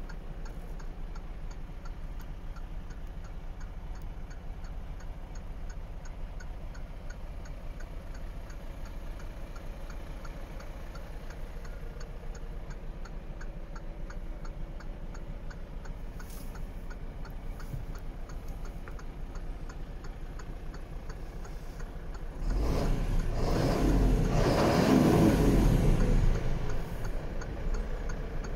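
Mercedes-Benz Atego 1227's six-cylinder diesel idling, heard from inside the cab, with a light regular ticking. About 22 seconds in the engine is revved for a few seconds, then falls back toward idle near the end.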